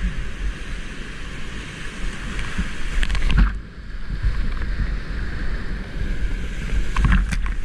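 Whitewater rapids rushing loudly around a kayak, with water and spray hitting the head-mounted camera. The rush drops away briefly about three and a half seconds in, and there are sharp splashes around three seconds and again near the end.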